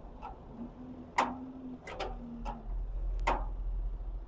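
A handful of sharp metallic clicks and taps, about five spread unevenly, from the discharge gate and handle of a steel concrete-mixing bucket being handled, over a faint low hum.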